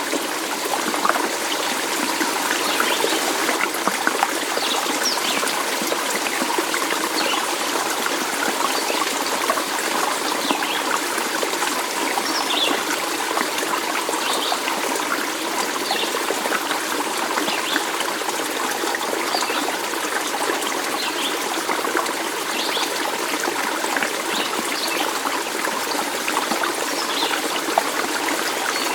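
Stream water trickling steadily, with many small, bright bubbling plinks throughout.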